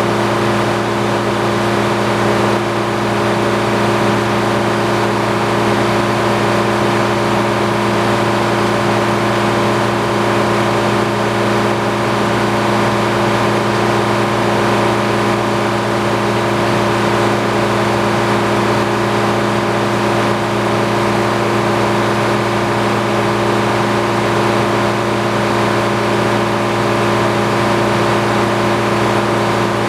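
Antique circular sawmill running steadily, a loud, even machine drone with several held tones and no change in speed.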